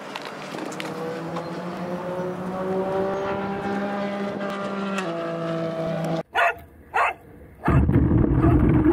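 Brushless motor of a JLB Cheetah 4WD RC car whining, rising in pitch then holding, and cutting off suddenly. Two short barks from a Welsh corgi follow, then near the end a loud rough rumble as the RC car drives over grass, heard from a camera mounted on the car.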